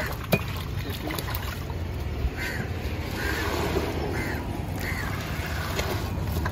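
Crows cawing: a run of short calls about a second or less apart in the middle, over a steady low rumble, with a couple of sharp knocks.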